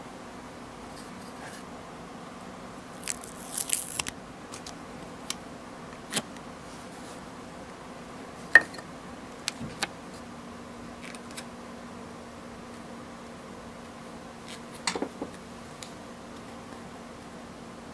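Scattered small plastic clicks and taps with light rustling, from a tiny plastic toy figure being handled and fitted onto its plastic display stand and the cardboard box being picked up. The sharpest click comes a little after halfway.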